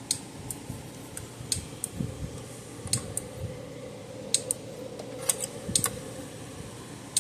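Scattered light clicks and ticks, irregularly spaced, from a Gallagher M150 electric fence energizer under test with meter probes held to its terminals, with a faint steady hum through the middle.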